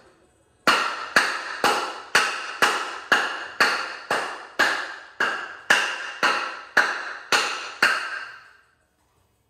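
Hammer blows on a block of wood, driving a stuck part off an engine. About fifteen even strikes, roughly two a second, each ringing briefly and dying away; they stop shortly before the end.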